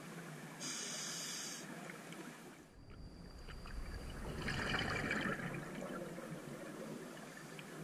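Scuba diver's regulator breathing, heard underwater: a hissing inhale through the regulator about a second in, then a longer, louder bubbling exhale from about three to six seconds.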